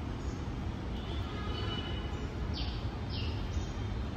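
Steady low background rumble, with a few short high chirps around the middle, the two clearest falling in pitch about half a second apart.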